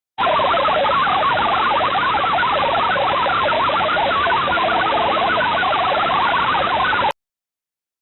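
Shortwave radio reception of the UVB-76 frequency: a hiss of static with dense, rapid warbling tones rising and falling over it, typical of pirate interference on the channel. It cuts off suddenly near the end.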